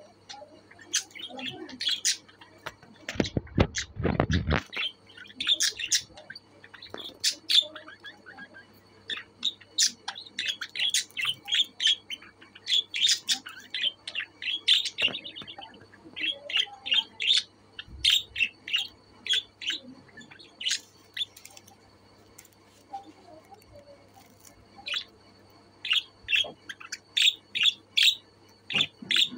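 Budgerigars chirping: quick runs of short, sharp, high chirps with a brief lull past the middle. A short burst of rustling noise comes about three seconds in.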